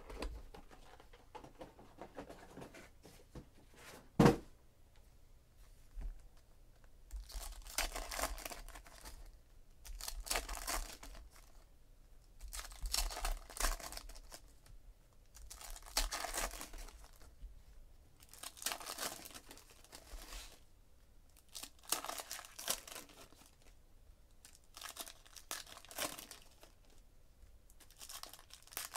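Foil wrappers of Donruss Optic baseball card packs being torn open and crinkled, in short bursts every two to three seconds. A single sharp knock about four seconds in is the loudest sound.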